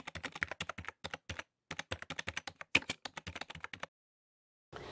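Typing sound effect: a rapid run of key clicks with a brief pause about one and a half seconds in, stopping dead just before four seconds in.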